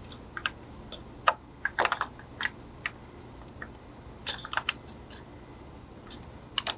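Scattered sharp clicks and clinks of hard engine parts knocking together as the brake vacuum pump is worked off the back of the cylinder head by hand, coming a few at a time in small clusters.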